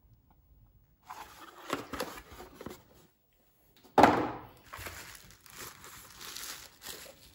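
Bubble-wrap and plastic packaging crinkling and rustling as it is handled, in two spells. The second spell opens with a sudden loud crackle.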